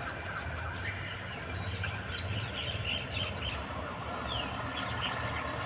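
Steady low rumble of a train running slowly onto a diverging track, with short high chirps and squeaks over it.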